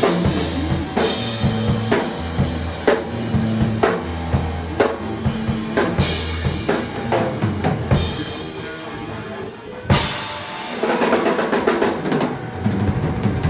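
Music with a drum kit keeping a steady beat of bass drum and snare over bass notes; a quick run of drum hits leads to one loud hit about ten seconds in, after which the drumming thins out.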